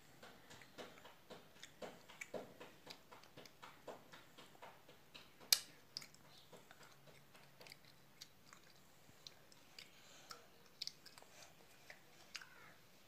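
A child chewing food close to the microphone: a run of small, irregular clicks and crunches, with one sharper click about halfway through.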